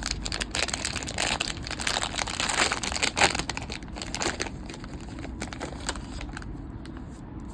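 Wrapper of a baseball card pack crinkling and crackling as it is handled and torn open to get at the stick of gum, busy and irregular, dying down about six seconds in.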